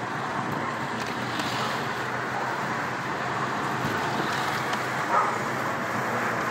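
Car driving slowly in town traffic, heard from inside the cabin: steady engine and road noise, with a brief louder sound about five seconds in.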